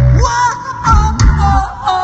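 Live rock band playing loudly, with regular drum hits and a sung melody over guitar.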